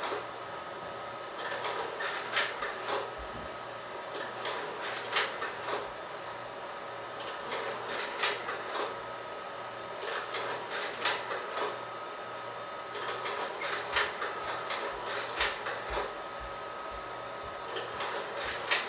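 1956 Bell & Howell Robomatic slide projector changing slides automatically in reverse. About every three seconds its slide-changing mechanism gives a short burst of clicks and clacks, over the projector's steady running hum.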